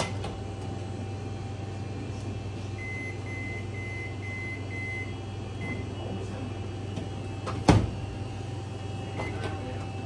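ZLINE drawer microwave being worked from its control panel: a run of five short, even high beeps, then one more, over a steady low hum. Its motorized drawer then shuts with a single loud thump about three-quarters of the way through.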